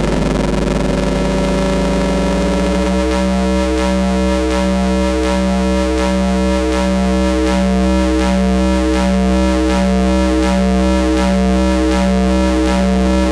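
Astrogorus synthesizer playing a steady low drone. At first, noisy tones glide upward and settle; about three seconds in, a rhythmic pulsing pattern starts, roughly two pulses a second, over the held drone.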